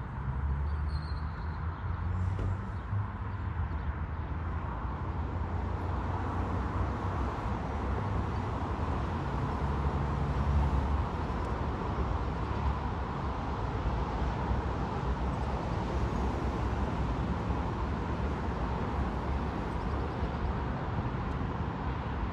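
Steady road traffic noise: a constant low rumble with a hiss above it, swelling slightly about ten seconds in.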